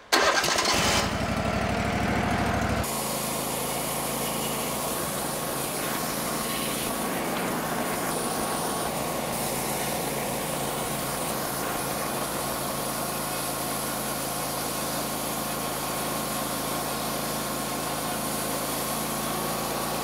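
Wood-Mizer LT15 Wide sawmill's gas engine cranked and started, running fast and loud for about the first two to three seconds, then settling into a steady, even run.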